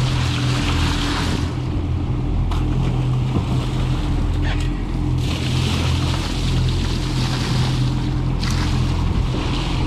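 Outboard engines running steadily at idle-to-low speed, with three bursts of splashing as buckets of seawater are poured over a bluefin tuna on the deck to flush its gills and cool it.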